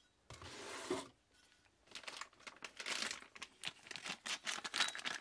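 Clear plastic bag crinkling as it is handled: a soft rustle in the first second, then a busy run of quick crackles from about two seconds in.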